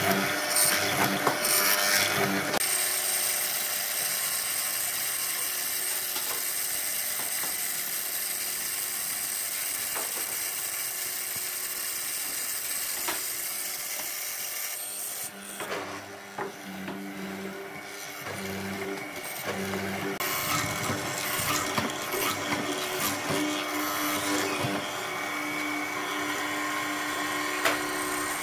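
Handheld power tool working wood, running steadily with a thin high whine. It eases off for a few seconds about halfway through, then cuts back in.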